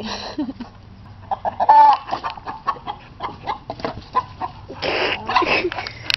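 Hens clucking in agitation at a dog that has just chased them, with one loud squawk about two seconds in and a harsher burst of squawking around five seconds.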